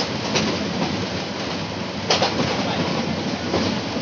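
Passenger train carriage running at high speed, heard from inside at an open window: a steady rumble and rush of wheels on rail, with a few sharp clicks as the wheels cross rail joints.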